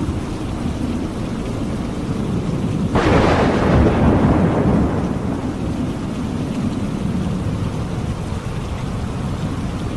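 Steady rain with a sudden crack of thunder about three seconds in, its rumble fading away over the next two seconds.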